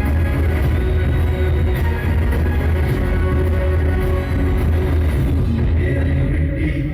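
Loud music with heavy bass.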